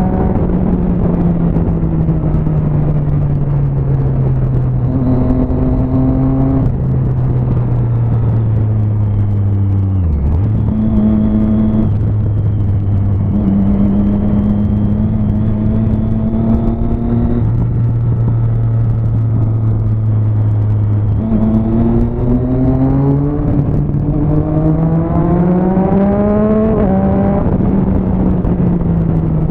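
Motorcycle engine heard from the rider's seat while riding. Its pitch sinks slowly as the bike eases off during the first ten seconds and holds fairly level for a while. Later it climbs again in steps as the rider accelerates through the gears, then drops back near the end.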